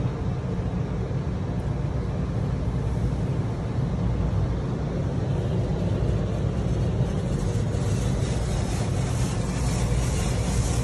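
Automatic tunnel car wash heard from inside the car: a steady low drone of the wash machinery and spinning cloth brushes. From about seven seconds in, water spray hitting the windows adds a rapid pulsing hiss.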